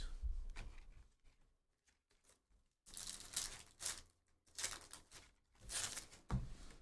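Foil trading-card pack wrappers, Topps Chrome Update baseball hobby packs, crinkling and tearing open in three or four short bursts, with a soft thump near the end.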